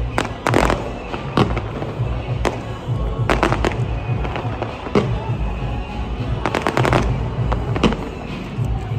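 Aerial fireworks shells bursting overhead in a string of sharp bangs about a second apart, with quick clusters of crackling reports about three and a half and seven seconds in.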